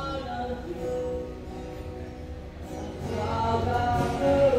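A live band playing, with a singer holding long notes over a steady low rumble; the music dips in the middle and grows louder again near the end.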